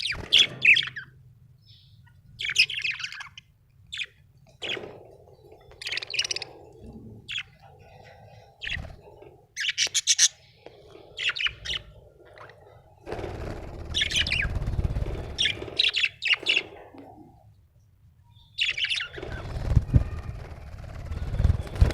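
Budgerigar chirping in short bursts of a few quick high chirps every second or two. A low rumble rises under the chirps around the middle and again near the end.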